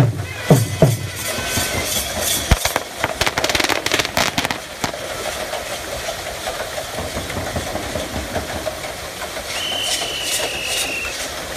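Bullock-driven Persian wheel (rahat) turning, its wooden gearing and well pots clattering, with a run of sharp clacks a few seconds in. A short whistle sounds near the end.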